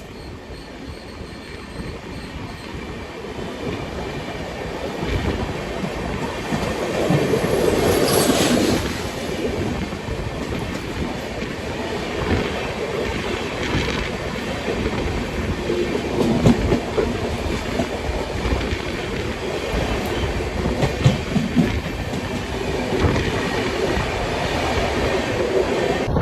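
Train running past on the rails, its wheels clattering over the rail joints. It grows louder over the first several seconds, is loudest about eight seconds in, and keeps up the clatter of short clicks after that.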